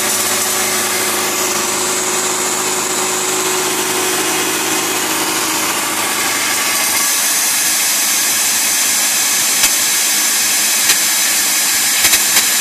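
CNC milling machine's end mill cutting the worn seal groove off a 1934 Packard rear-axle hub: a loud, steady whirring hiss of the spindle and cut. The low hum underneath drops away about seven seconds in, and there are a few light clicks near the end.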